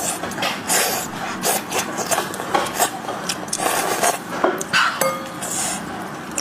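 Close-miked eating of a cooked sheep's head: meat torn off and gnawed from the bones, with a quick, irregular run of wet chewing, smacking and scraping sounds.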